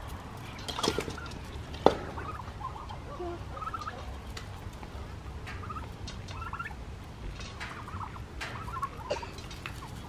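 Domestic turkeys giving short high calls at intervals while being fed at a fence, with one sharp knock about two seconds in.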